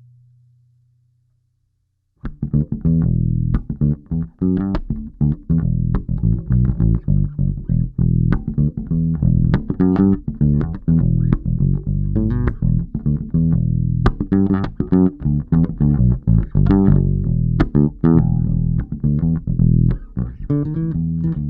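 Electric P-Bass wired with a TBX tone circuit, played through an amp. A held note dies away, and after a short silence a fast run of plucked notes with sharp, bright attacks starts about two seconds in and keeps going.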